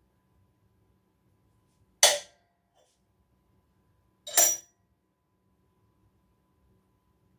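Two sharp knocks about two seconds apart, each dying away quickly, of tools being set down on the workbench; the second lands as a quick double knock.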